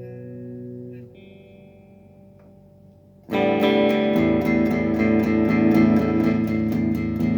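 Electric guitar played through a small RG15 combo amp. A chord rings out and fades, a quieter note follows, then about three seconds in a loud rhythmic strummed pattern starts and keeps going.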